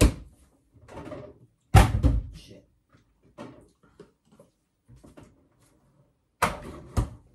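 Kitchen clatter: a series of separate knocks and thuds from things being handled, the loudest about two seconds in and two sharp knocks near the end.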